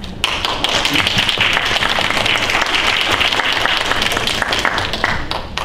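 Audience applauding, many hands clapping together. It starts sharply just after the start and dies away near the end.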